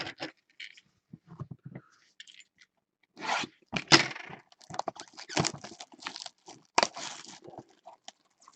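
Foil wrapper of a trading card pack being torn open and crinkled: a few soft taps at first, then from about three seconds in a dense run of crackling rips.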